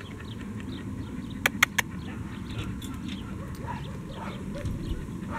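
Dog panting, with faint bird chirps in the background and three sharp clicks close together about a second and a half in.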